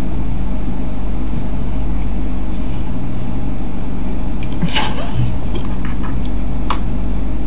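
Domestic cat purring steadily and loudly, close up, with a short sniff or rustle about halfway through.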